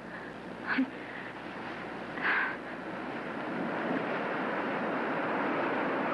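A steady rushing, wind-like whoosh from a television soundtrack, swelling in about three seconds in and then holding level.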